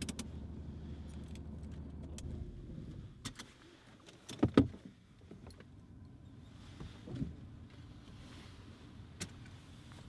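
Inside a car, a steady low engine hum stops about two seconds in. Then keys jangle with a few clicks and a loud knock about halfway through, and smaller knocks follow.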